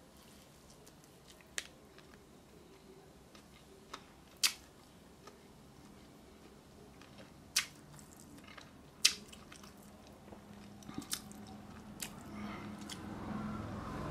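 A person chewing a mouthful of burger, with a few sharp, wet mouth clicks and smacks spaced several seconds apart.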